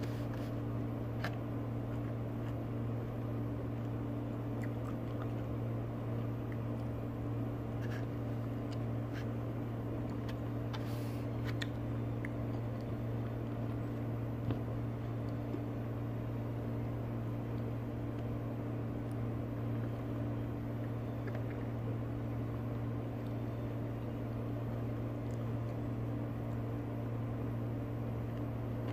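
A steady low hum of a running motor or appliance, which comes up right at the start. Over it are faint scattered clicks and soft eating sounds as mango slices are picked up by hand and chewed.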